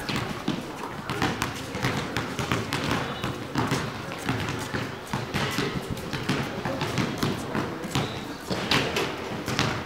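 A basketball being dribbled on a concrete court: repeated sharp bounces and players' footsteps, with a chatter of players' and spectators' voices.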